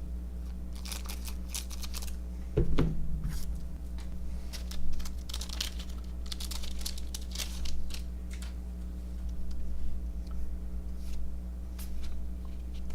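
Baseball card pack wrappers crinkling and tearing, with cards being handled and shuffled in short rustles, two soft thumps, and a steady low hum underneath.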